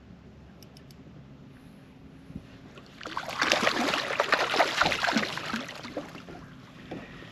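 A hooked spotted bass thrashing and splashing at the water's surface beside the boat. A loud burst of splashing starts about three seconds in, lasts a couple of seconds, and then dies down.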